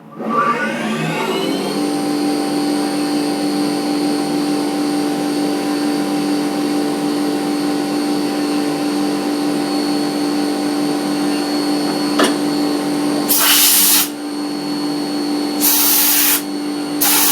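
CNC mill spindle spinning up to speed with a ball end mill and then running steadily with a high whine while it cuts decoration into a titanium pen tube. Near the end there are three loud hisses, typical of compressed air blown over the cut to cool it.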